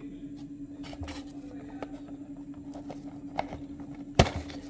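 A cardboard-and-plastic diecast model car box being handled and opened: scattered light scrapes and clicks, with one sharp click about four seconds in. A steady low hum runs underneath.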